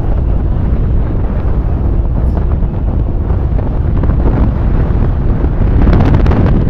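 Wind buffeting the microphone of a moving vehicle, a deep continuous rush, with the vehicle's road noise beneath it. It grows a little louder about six seconds in.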